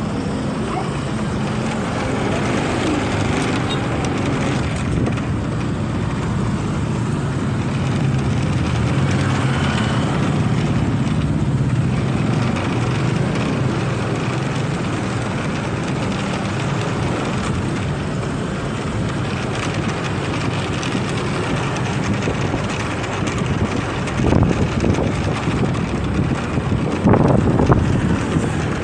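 Motorcycle engine running steadily on the road, with wind buffeting the microphone and road noise; a few louder bursts near the end.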